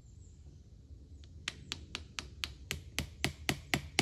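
Hammer striking, nailing a laminated sign onto a tree trunk: a steady run of blows about four a second, starting about a second and a half in and growing louder.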